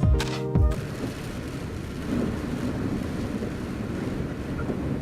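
Background music ends under a second in; then the steady noise of a car driving on a rain-soaked road, its tyres hissing through standing water, swelling about two seconds in.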